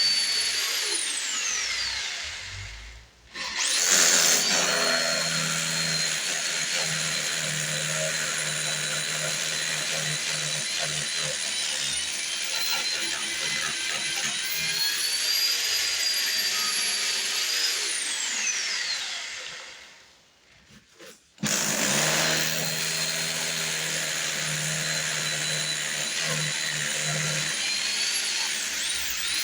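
Electric power tool running in long stretches with a high whine, stopping twice as its whine falls away while it spins down, then starting up again.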